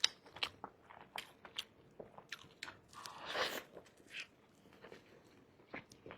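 A person biting and chewing food: a run of short, crisp mouth clicks and crunches, with one longer, louder noisy stretch a little past halfway.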